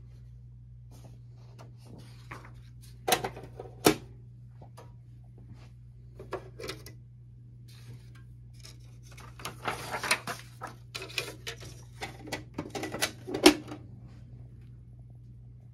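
Handling noises at an HP LaserJet 1022 laser printer: paper rustling and sharp plastic clicks and knocks from the paper tray and front cover, with a busy stretch of rustling and clicking in the second half that ends in the loudest click, over a steady low hum.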